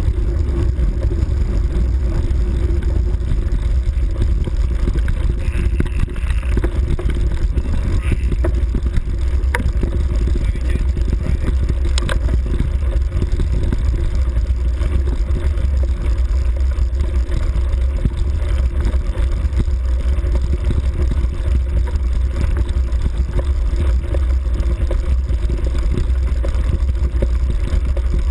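Steady low rumble of wind buffeting the microphone of a camera moving along a rough grass forest track, with rattling and a few sharp knocks from jolts.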